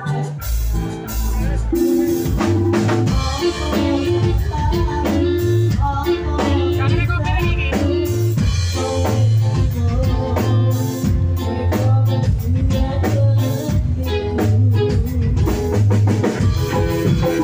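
Dance music with a driving drum beat and heavy, pulsing deep bass, played loud through a large PA sound system with subwoofers.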